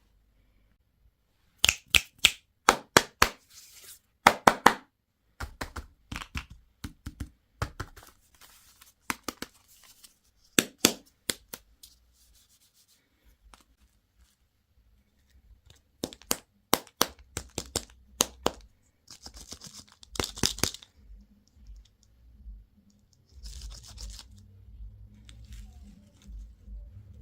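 Candy and toy packaging opened by hand: quick clusters of sharp plastic clicks and snaps, with stretches of wrapper tearing and crinkling.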